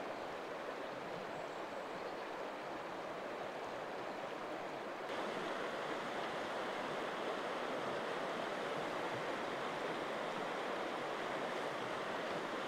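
Steady rush of fast-flowing river water, a little louder from about five seconds in.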